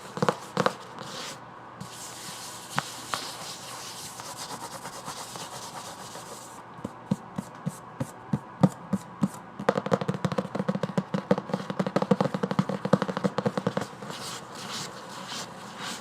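Fingers tapping and scratching on a book. A few taps open it, then a few seconds of scratchy rubbing, then scattered single taps. From about ten seconds in to about fourteen comes a run of fast tapping, several taps a second.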